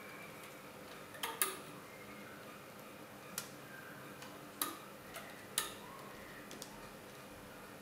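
Scattered sharp clicks as rubber bands are stretched onto the pegs of a clear plastic Rainbow Loom, with fingers and fingernails tapping the plastic. The loudest is a close pair of clicks about a second and a half in; a few single clicks follow about a second apart.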